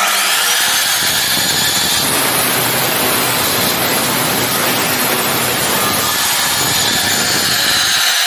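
Polymak PM180CS 7-inch (180 mm), 1500 W abrasive cut-off saw switched on, its motor whining up to speed at once, then the abrasive wheel grinding through a metal pipe with a harsh, loud hiss that covers the whine. Near the end the high whine comes back as the cut is through, then starts to fall as the motor winds down.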